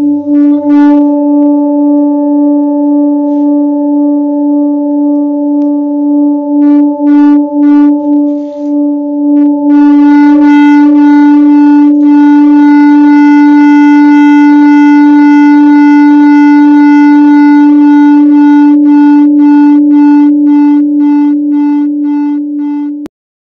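Hand-hammered seven-metal Himalayan singing bowl sung by rubbing a mallet around its rim: a steady low hum with a slow wobble, its bright upper overtones building up about ten seconds in and throbbing in time with the circling mallet. It cuts off suddenly near the end.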